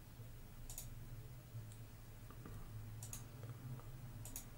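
Faint computer mouse clicks, three quick double ticks spread over a few seconds, over a low steady hum.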